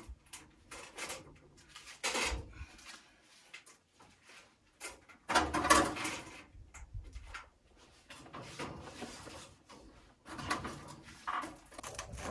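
Granite stones scraping and knocking against the stone wall as they are shifted and set into place: irregular grating scrapes and knocks with short pauses between, the loudest cluster about halfway through.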